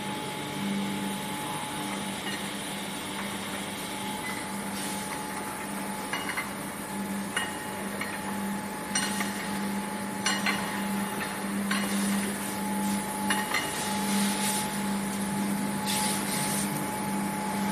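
Steady hum of V-process molding-line machinery, with a low tone and a fainter higher tone. Scattered metallic clinks and knocks join in from about six seconds in.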